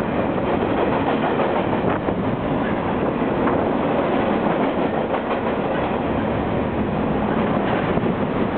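Long freight train rolling past at steady speed, its wheels clattering over the rail joints in a continuous rumble.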